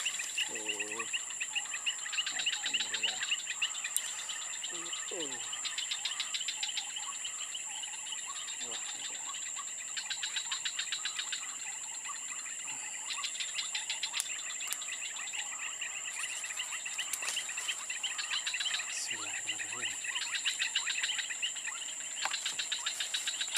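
Insects chirring: a steady high-pitched whine, with bouts of fast pulsed trilling that fade in and out every few seconds.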